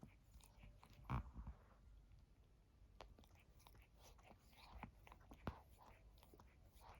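Ragdoll cat grooming itself: faint, irregular wet clicks and smacks of licking and nibbling at its fur, with a louder short burst about a second in.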